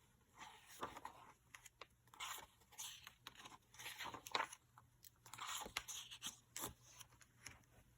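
Faint, irregular rustling and crinkling with scattered sharp clicks, the sound of paper book pages being handled and turned.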